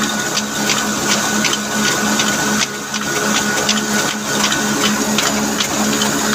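Old stationary diesel engine running steadily with an even beat of about five sharp ticks a second, driving a wheat-grinding flour mill.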